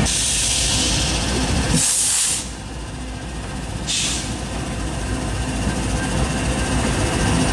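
Norfolk Southern diesel freight locomotives rolling slowly past, engines running with a low rumble, while compressed air vents in hissing bursts: a long hiss at the start, a sharper, louder one about two seconds in, and a short one about four seconds in.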